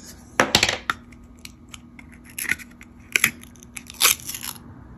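Long acrylic nails clicking and scratching on a small plastic jar of acrylic nail powder while picking at and peeling its paper inner seal: sharp clicks and short scratchy rips in several brief spurts.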